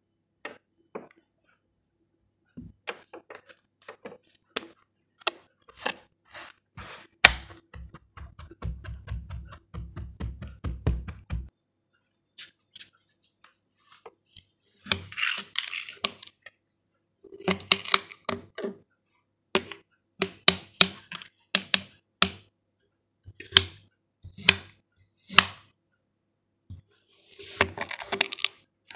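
Kinetic sand being squeezed and pressed by hand, with soft crumbling and a run of dull thumps, then a knife slicing down through molded kinetic sand shapes, each cut ending in a sharp click of the blade on the laminated board, about a dozen times in the second half.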